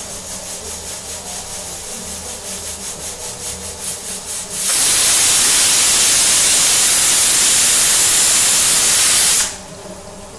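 Pressure cooker's whistle weight lifting and releasing steam. First it hisses in quick pulses, then a loud, steady whistle of escaping steam runs for about five seconds and cuts off sharply. This is the cooker's first whistle, the sign that it has reached full pressure and the pulao rice is cooked.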